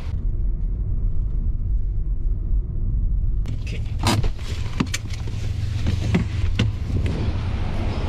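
Inside a Mazda car's cabin as it drives: a steady low engine and road rumble. From about halfway in there are several sharp knocks and clicks.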